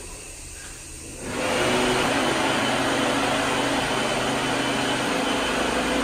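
Wall-mounted electric hand dryer switching on about a second in and then running with a steady, loud blowing rush and a faint hum.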